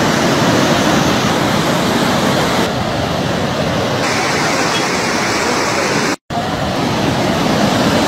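Fast-flowing floodwater rushing as a loud, steady noise, broken by a brief moment of silence about six seconds in.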